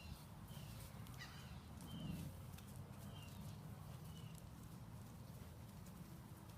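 Puppies making faint, short, high squeaks about once a second, over a steady low rumble and scattered light clicks.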